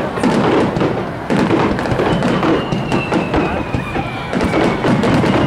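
Aerial fireworks bursting in quick succession: a dense run of bangs, thumps and crackles with a low rumble. A thin high whistle slowly falling in pitch runs through the second half.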